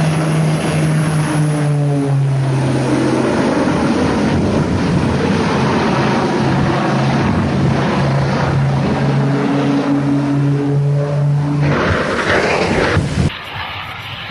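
Engine running steadily with a low drone that shifts pitch in a few steps, over a rushing noise; it breaks off abruptly about 13 seconds in.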